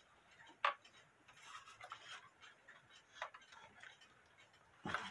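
E. Schmeckenbecher blacksmith cuckoo clock's mechanism working after being tripped: a few sharp, separate clicks a couple of seconds apart as the figures strike the anvil, with fainter ticking between them.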